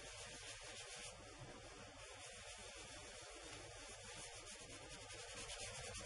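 Faint rubbing of an inked foam craft sponge worked in small circular strokes over embossed cardstock.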